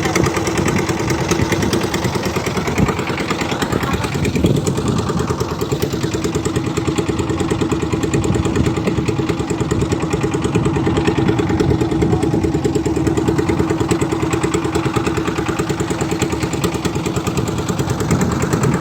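A river boat's engine running steadily at an even speed, with a fast, regular firing beat.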